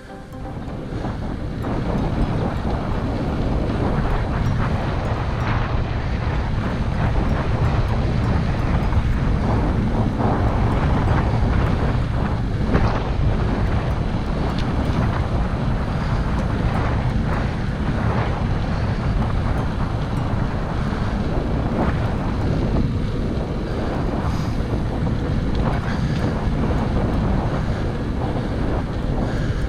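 Wind buffeting the microphone while riding a full-suspension mountain bike, a steady rushing noise mostly low in pitch, with fluttering gusts. It builds up over the first couple of seconds and then holds.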